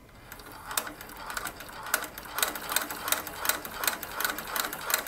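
Seiko TE-6B cylinder-arm industrial sewing machine stitching through a leather strip. It starts slowly and picks up over the first two seconds into a steady clatter of about three stitches a second.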